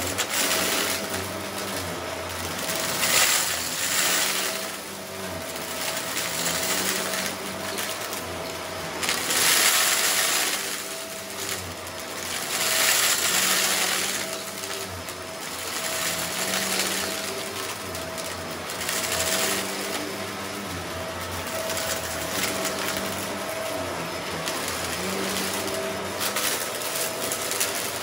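Shark upright vacuum running steadily while sucking up small rocks and grit from a shag rug, its motor holding a steady whine. The sound swells into louder hissing surges every few seconds as the brush head is pushed and pulled over the rug.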